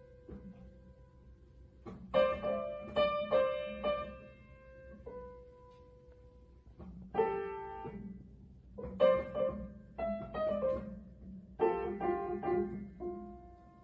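Upright piano keys pressed by a cat's paws: irregular clusters of notes struck together in short spurts, each ringing out and fading, with pauses of a second or two between them.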